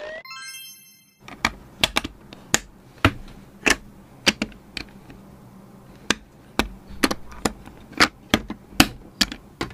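Small plastic building bricks clicking and snapping as they are pressed together and handled: about twenty sharp, irregular clicks. It opens with a short rising swoosh and a chime-like sound effect.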